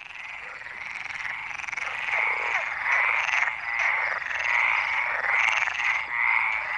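Male Iberian water frogs calling to attract females: a dense chorus of overlapping croaks that grows louder over the first two seconds and then holds steady.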